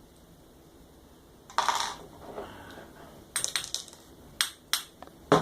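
Brass padlock being taken apart by hand: after a quiet start, a run of light metallic clicks and clinks as the core and its small pins and springs are worked out, the loudest pair near the end.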